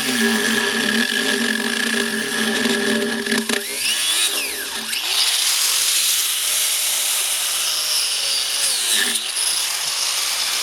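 Craftsman angle grinder with a cut-off wheel, running loud and steady while cutting through a rubber tire. Its whine drops and recovers about four seconds in and again about nine seconds in, as the disc bogs in the cut.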